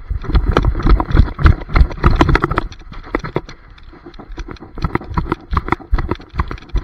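A dog running across a lawn with a frisbee, its footfalls and the jolting of the camera strapped to its back making rapid thumps and knocks. They are heaviest in the first two and a half seconds, then lighter.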